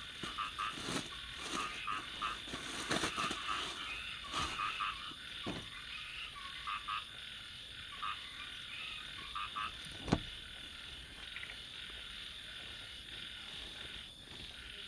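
Frogs croaking in short repeated calls over a steady insect drone at night. Plastic and fabric rustle as a sleeping bag is unpacked, and a single sharp knock, the loudest sound, comes about ten seconds in.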